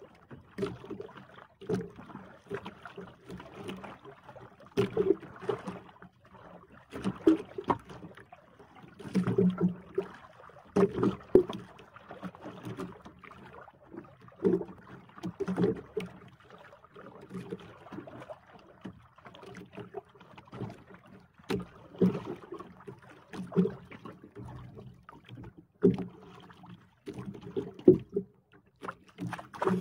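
Waves slapping and knocking against the hull of a small outrigger boat, irregular splashes every second or two, with some wind.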